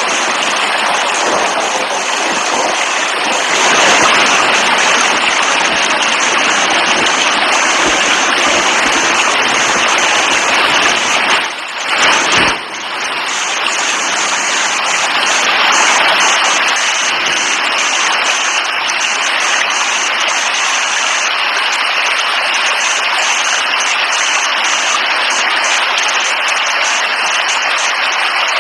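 Steady heavy rain, a dense even wash of noise, with a brief dip and break a little before halfway through.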